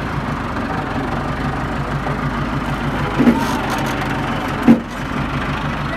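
Tractor diesel engine idling with a steady, even throb. Two brief louder knocks come about a second and a half apart, a little past the middle.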